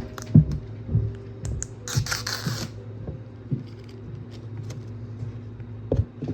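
Plastic DVD case being handled and opened: scattered clicks and knocks, with a brief scraping rustle about two seconds in, over a steady low hum.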